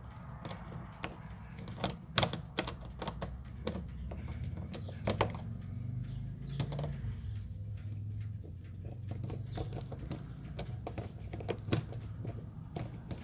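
Screwdriver driving a screw into a plastic bumper clip by hand: scattered, irregular clicks and taps, over a low steady hum.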